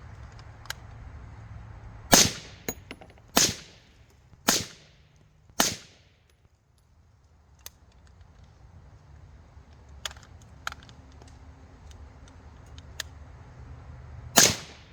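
Springfield Saint Victor AR-15 in 5.56 firing regular supersonic 5.56 rounds through an OSS suppressor. Four sharp shots about a second apart, then a fifth shot near the end, with faint clicks in between.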